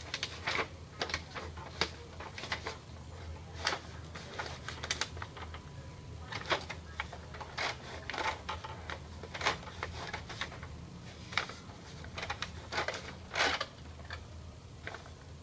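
Irregular plastic clicks and taps, with some paper rustle, from hands working the paper feed and print carriage of an opened Epson L210 inkjet printer, over a low steady hum.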